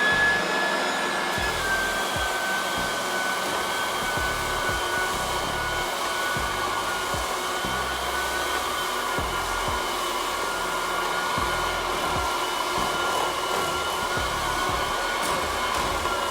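An electric motor running steadily with a rushing, whirring noise, its high whine sinking slightly in pitch early on and then holding.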